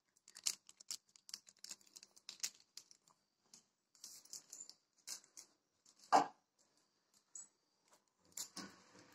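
Small foil seasoning sachet being crinkled and torn open by hand, a run of short, irregular crackles and ticks. One louder short sound stands out about six seconds in.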